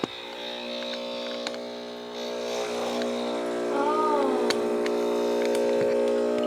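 Home espresso machine's pump buzzing steadily while pulling a shot, after a click at the start; the hum grows louder about two to three seconds in as the pressure builds.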